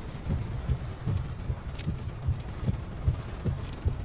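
4x4 vehicle driving slowly over a rough, muddy road: a low rumble with irregular thumps and knocks as the body and suspension jolt through ruts, and a few faint high ticks.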